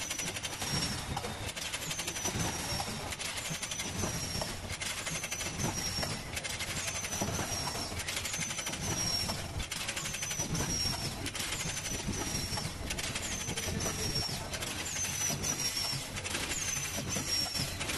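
Multi-lane sachet packaging machine running in steady cycles, about one every one and a half seconds, each marked by a short high squeak that falls in pitch, over a constant mechanical clatter of light clicks.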